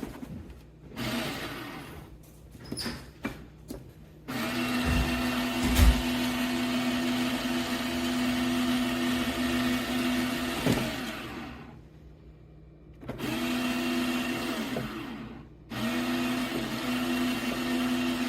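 Electric coffee grinder motor running in several separate bursts with a steady hum: a long run of about seven seconds, then two shorter runs near the end. A couple of dull knocks come during the long run.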